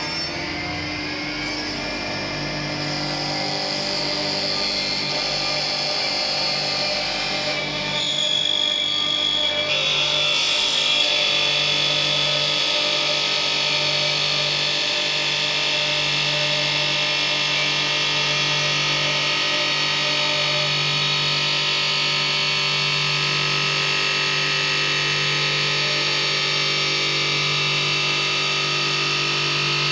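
CNC lathe running: a steady machine hum with a high whine, growing louder over the first ten seconds or so and then holding steady.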